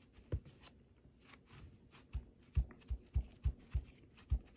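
Hands pressing and patting a paper towel down onto an inked stencil on a tabletop. There is one soft low thump near the start, then a quick run of dull thumps, about three a second, from about halfway through.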